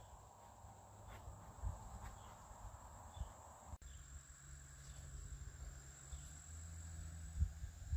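Faint, steady high-pitched insect trilling, like crickets, over a low background rumble.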